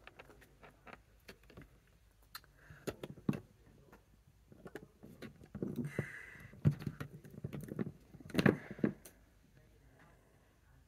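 Plastic Lego bricks clicking and knocking as pieces are handled and pressed together on a tabletop: scattered small clicks, with a louder cluster about eight and a half seconds in.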